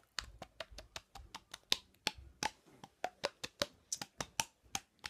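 Open-mouthed cheek slapping: both hands patting the cheeks in quick succession, about four pops a second, the pitch of each pop shifting as the mouth changes shape.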